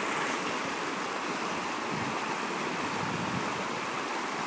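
Steady rush of fast water pouring through a river flume.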